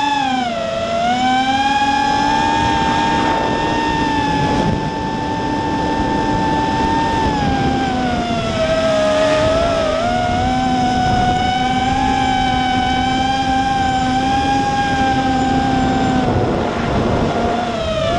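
Eachine X220 FPV racing quadcopter's brushless motors and propellers whining under flight, heard from its onboard camera. The pitch dips sharply about half a second in, then holds fairly steady, with wavering pitch changes as the throttle moves around the middle and again near the end.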